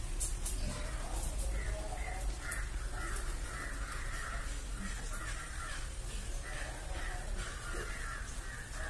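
A crow cawing over and over, a long series of short harsh caws starting about a second and a half in.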